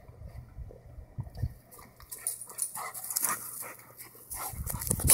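A dog making short sounds as it moves about on grass and dry leaves, with a few brief calls in the middle and a louder rush of noise near the end.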